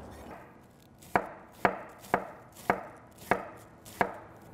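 Knife slicing a quarter of savoy cabbage into thin shreds on a wooden cutting board. Starting about a second in there are six crisp cuts, about two a second, each ending in a knock of the blade on the board.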